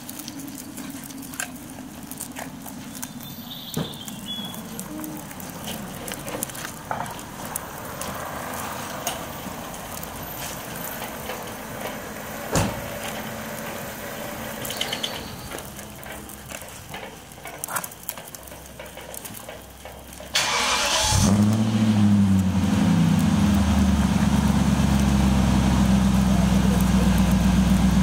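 BMW 540iA's V8 engine cranked briefly by the starter about twenty seconds in, catching and settling into a loud, steady fast idle typical of a cold start. Before it, only low background noise with a few small knocks and one sharp thump.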